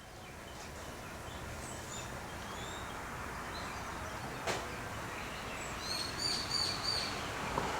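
Birds chirping over a steady outdoor hiss of ambience: a few scattered short high calls, then a quick run of about five repeated notes near the end. There is one sharp click about halfway.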